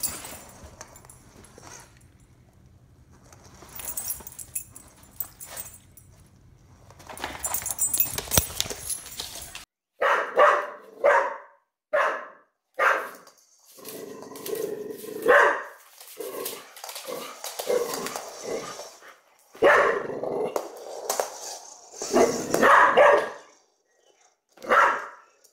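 Dogs barking at a small BB-8 toy droid in short, loud, repeated barks, beginning about ten seconds in and continuing in bursts. Before that, only quieter scattered hissy noises.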